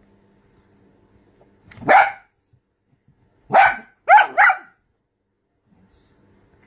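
Small dapple dachshund barking: one bark about two seconds in, then three quick barks in a row a moment later.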